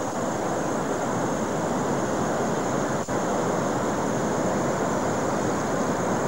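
Steady rushing roar of a waterfall, the falling water crashing continuously, with a momentary break about three seconds in.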